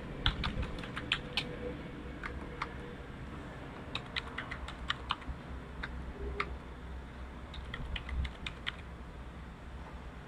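Computer keyboard being typed on in several short bursts of keystrokes, with pauses between the bursts.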